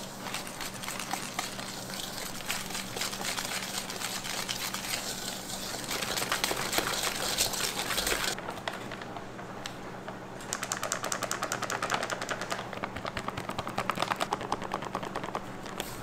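Food-preparation sounds: dense crackling and scraping for about eight seconds, then, after an abrupt change, a run of rapid, even clicking, over a faint steady hum.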